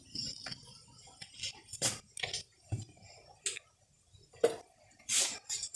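Scattered light clicks and knocks with a few short rustles, as pamonha batter is scooped from a plastic basin and filled into green corn husks.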